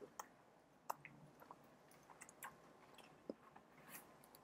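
Quiet close-up chewing of soup-dipped bread with the mouth closed: soft, irregular wet mouth clicks, the sharpest about a second in.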